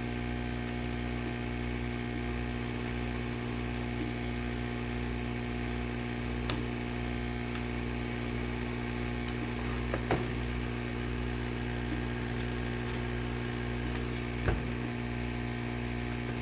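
Steady electric hum of a running workshop machine, with a few sharp clicks of a prying tool working the iPad's glass loose.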